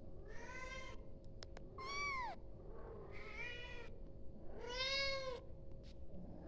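Young kitten meowing four times, about a second apart, each call rising and then falling in pitch: a kitten calling for its mother.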